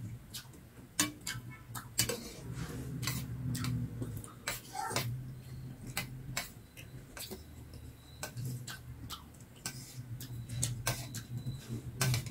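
Metal spoons clicking and scraping against stainless steel plates of dry raw rice, with the crunch of hard uncooked rice grains being chewed. Irregular sharp clicks, several a second.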